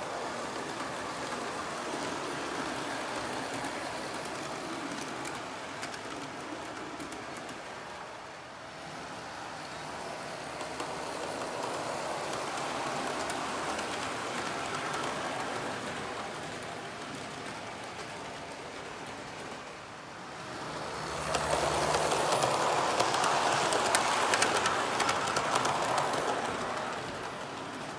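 O scale model train running on the layout, a steady rolling rumble of metal wheels on the rails with fine clicks from the track. It grows much louder about three quarters of the way through as the cars and caboose pass close by, then fades.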